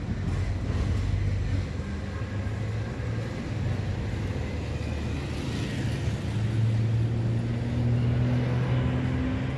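City street traffic: a motor vehicle's engine running close by with a low, steady drone that rises slightly in pitch in the second half, over the general noise of passing cars.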